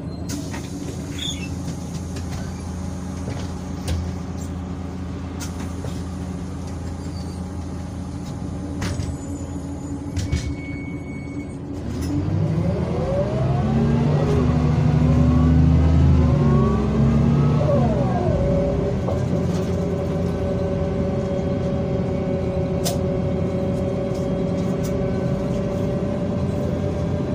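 Mercedes-Benz O345 city bus diesel engine idling. About twelve seconds in it gets louder as the bus pulls away, with its pitch climbing and then dropping back near eighteen seconds, like a gear change. It then runs on steadily with a constant whine.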